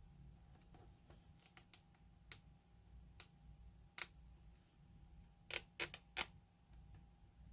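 Near silence with scattered faint clicks and taps from hand-sewing with needle and thread, a few more in quick succession near the end.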